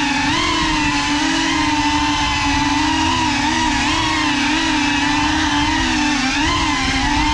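GepRC Cinelog35 cinewhoop FPV quadcopter's brushless motors and ducted propellers whining. The pitch wobbles up and down as the throttle changes, heard up close from the onboard GoPro.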